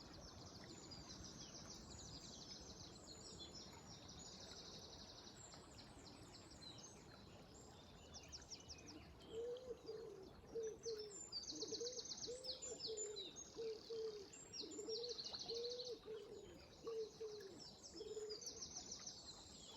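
Several songbirds singing high chirps and rapid trills over a steady low rush of flowing water. About halfway in, a dove starts cooing, a run of low repeated coos that goes on for several seconds.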